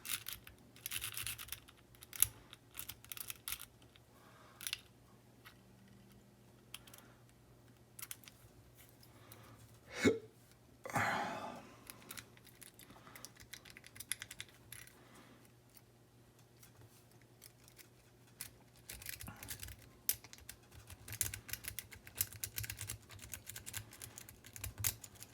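Lock pick and tension wrench working the pins inside an ERA rim cylinder: runs of small metallic clicks and scratches, in clusters near the start and again near the end, with a brief louder sound about ten seconds in.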